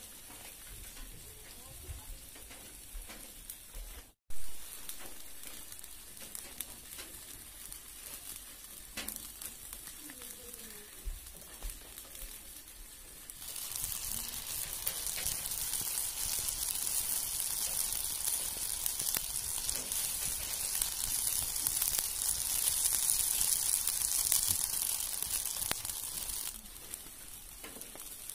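Banana skipper caterpillars frying in oil in a black iron pan: a steady high sizzle that starts about halfway through and stops shortly before the end. Before it there are only faint crackles, and one brief sharp pop about four seconds in.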